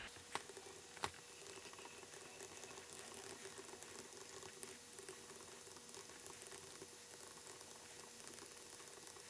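Faint scratching and tapping of a stylus writing on a tablet screen, with two small clicks within the first second or so, over a faint steady hum.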